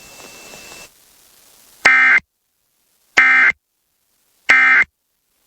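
Emergency Alert System end-of-message tones heard over FM radio: three short, identical bursts of buzzy digital SAME data, each about a third of a second long and a little over a second apart, marking the end of the alert.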